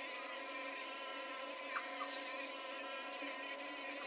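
Electric toothbrush buzzing steadily in the mouth during brushing: one even, high-pitched hum.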